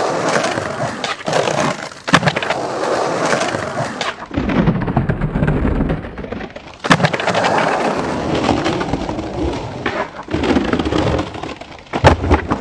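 Skateboard wheels rolling over rough concrete, with sharp clacks as the board's tail pops and the deck lands, three loud ones a few seconds apart. A deeper rumble from the wheels comes in the middle.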